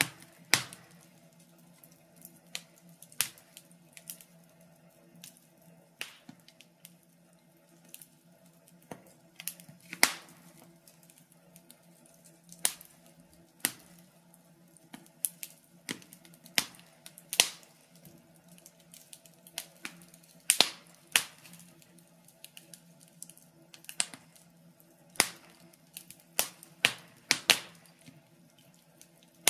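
Wood fire crackling: irregular sharp snaps and pops, a few louder than the rest, with no steady rhythm.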